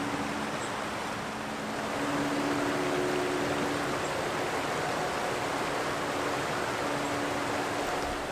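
Steady rushing of a shallow mountain stream running over rocks.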